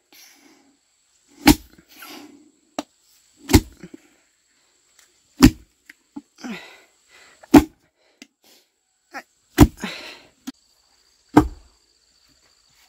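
Long wooden pestle pounding white dough in a wooden mortar: six dull thuds about two seconds apart, with softer rustling between some strikes.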